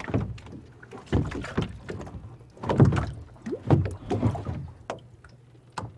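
Kayak on the water: irregular splashes and sharp knocks against the hull, in uneven bursts.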